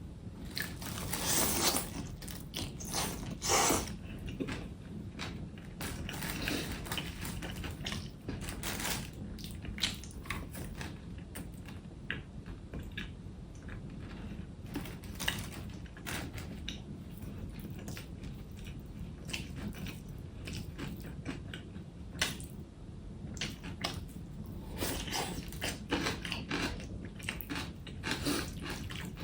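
A person eating close to the microphone: biting and chewing crunchy food, with irregular clicks and crunches that come thickest in the first few seconds and again near the end.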